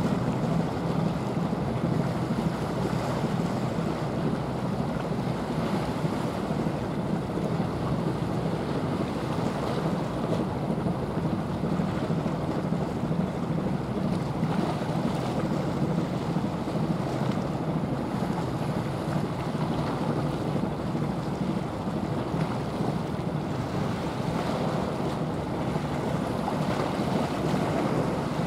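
Steady wind rumble on the microphone over the wash of water. There are no separate events and it stays even throughout.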